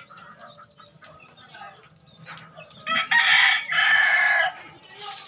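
A rooster crows once, loudly, about three seconds in. The crow lasts about a second and a half, in two parts. Chickens cluck softly around it.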